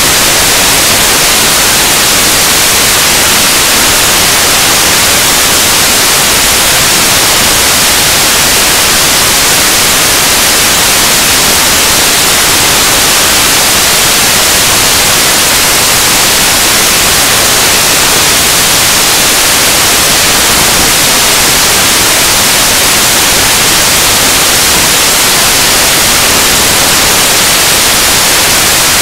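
Loud, steady static hiss, strongest in the high range, unchanging throughout, with no other sound.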